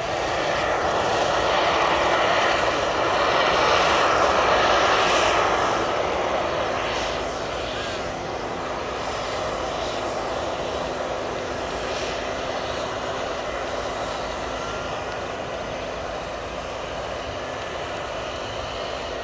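Boeing 767-300ER's General Electric CF6-80C2 turbofans running at taxi power as the airliner rolls past, a rushing jet whine. It is loudest over the first five or six seconds, then settles into a steadier, lower drone with a faint steady hum beneath.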